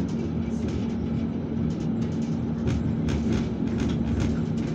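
Alsthom TFS tram running along the track, heard from inside the passenger car: a steady rumble with a constant hum, and scattered clicks and rattles.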